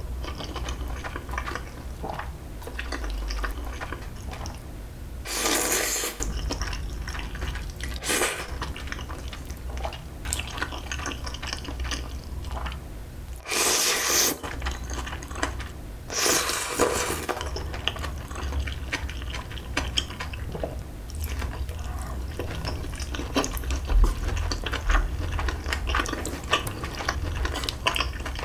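A person slurping and chewing instant jjajang noodles (Chapagetti in black bean sauce), with four loud slurps spread through: near 5, 8, 14 and 16 seconds in. Between them come wet chewing and small clicks of metal chopsticks against the aluminium pot and bowl.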